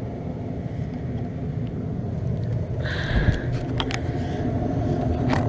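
2001 York gas furnace running in heat mode: a steady low rumble, with a single thump about three seconds in and a few light clicks after it.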